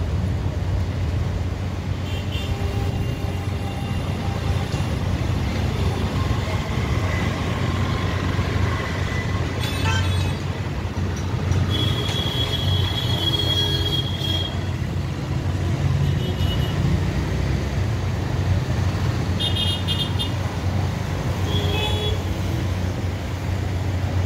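Steady road traffic of motorcycles and cars passing, with a constant low rumble. Vehicle horns toot several times, the longest held for about two seconds near the middle.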